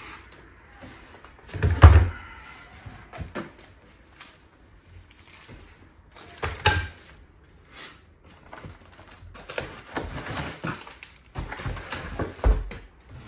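Unpacking a large cardboard shipping box of plastic-wrapped YAW3 motion simulator parts: plastic wrap rustling and crinkling, cardboard flaps moving, and several dull thumps, the loudest about two seconds in, with others midway and near the end.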